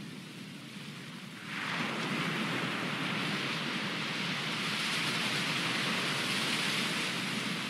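Ocean surf washing up on a sandy beach, a steady rushing hiss. About a second and a half in, a wave breaks and the hiss of foam grows suddenly louder, then holds.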